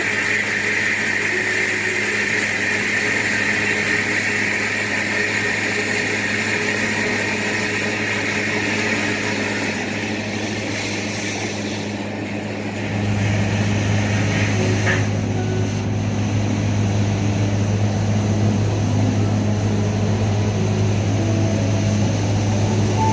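Steady machine hum with a hiss, the low hum growing louder about halfway through.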